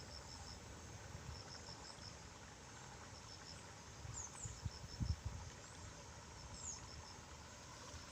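Faint outdoor insect chorus: high-pitched chirps in quick rows of short pulses, with a few brief high falling calls over it and a few low thumps about four to five seconds in.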